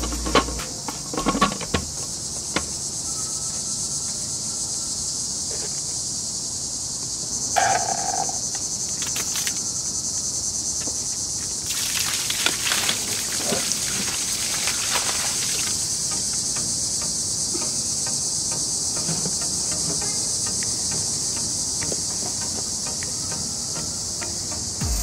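A steady, high-pitched chorus of insects, with a few clicks and knocks in the first two seconds. About twelve seconds in, water pours out of a pool hose and splashes onto the ground for a few seconds.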